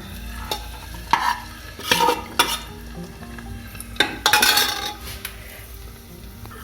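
Raisins frying in hot ghee and sunflower oil in a pressure cooker, sizzling as a spoon stirs them and scrapes against the metal pot, with a few short clatters and a longer, louder scrape about four seconds in.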